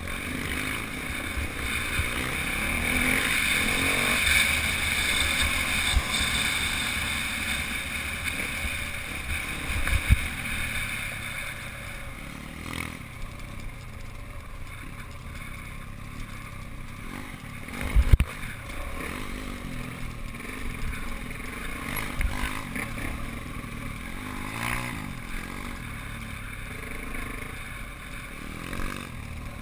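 Motorbike engine running and revving up and down while riding a dirt trail, heard with wind rumbling on the microphone. There are two short, sharp thumps, about ten and eighteen seconds in.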